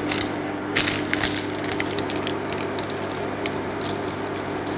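Baking paper crinkling and rustling under the hands as it is pressed down over a pie, with a few sharper crackles about a second in.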